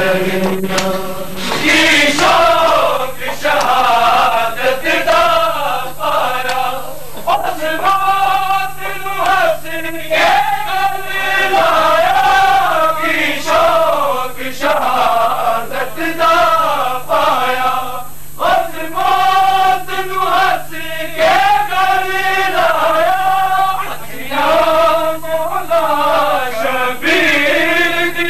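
Male voices chanting a Punjabi noha, a Shia mourning lament, in melodic sung phrases with short breaks every couple of seconds.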